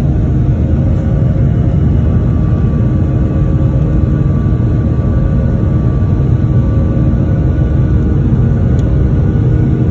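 Boeing 737-900's CFM56-7B jet engines at climb thrust just after takeoff, heard inside the cabin by the wing: a loud, steady rumble with a few steady humming tones over it.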